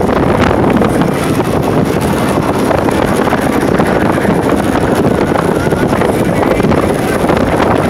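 Wind rushing over the microphone of a moving motorcycle, with the motorcycle's engine and road noise underneath.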